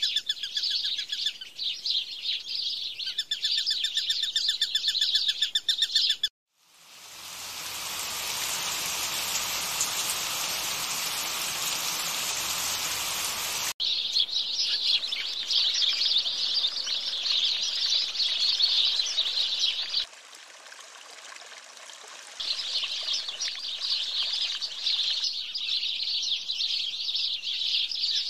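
Birds chirping and trilling rapidly. About six seconds in they give way to a steady rushing hiss that cuts off sharply near the middle, and then dense chirping returns, dropping back briefly a few seconds later.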